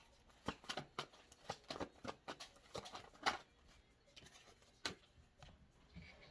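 Tarot cards being handled: a run of irregular light clicks and taps, with two sharper clicks about three seconds and five seconds in.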